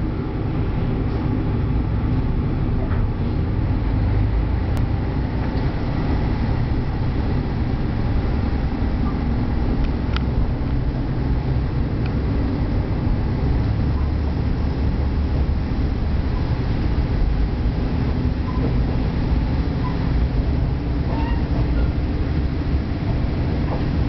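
Cabin sound inside a JR East KiHa 38 diesel railcar under way: the diesel engine's steady drone and the rumble of the wheels and running gear, with a few faint clicks.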